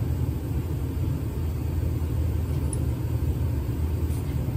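Steady low rumble.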